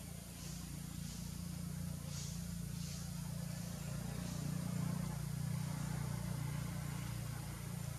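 Steady low background rumble, slightly louder around the middle, with a few faint short rustles.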